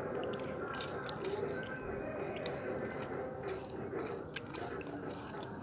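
A dog chewing a dry biscuit, with a few sharp crunches among quieter mouthing.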